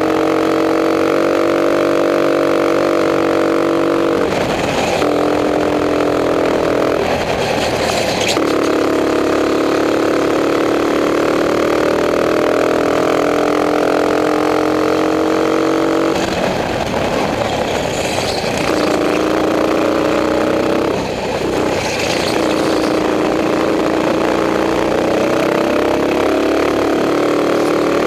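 Racing kart engine at race speed, close to the microphone: its pitch climbs slowly through each straight, then breaks into a rougher, noisier sound for a second or two, four times, as the throttle comes off for corners.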